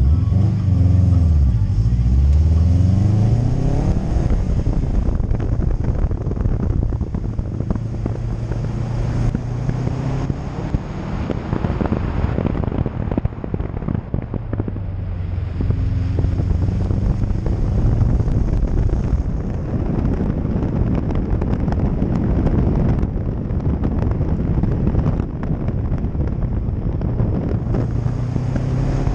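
Subaru WRX's turbocharged flat-four engine being driven hard through an autocross course, its pitch rising and falling quickly in the first few seconds, then holding steadier stretches between changes. Wind buffets the microphone mounted outside the car, over tyre noise on wet pavement.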